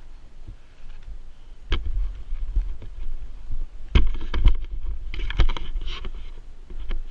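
Irregular close knocks, clatters and scuffs as a dirt bike is handled on a rocky trail, over a low rumble. The loudest thumps come about four to five and a half seconds in.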